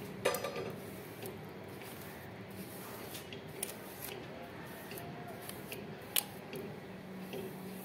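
Wide-tooth plastic comb drawn through long straight hair and hands handling the hair: faint brushing strokes with three sharp clicks, one near the start, one in the middle and one near the end, over a steady low hum.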